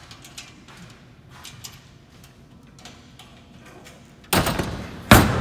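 Light knocks and clicks of stage and lighting gear being handled, then two loud bangs about a second apart, the second the louder and sharper, echoing in a large gym.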